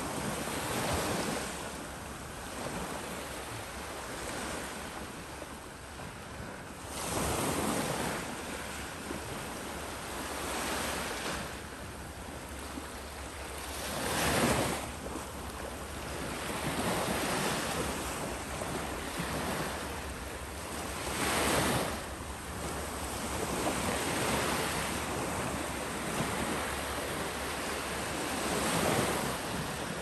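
Small sea waves breaking and washing up a sandy beach: a steady hiss of surf that swells with each wash about every seven seconds, then fades back.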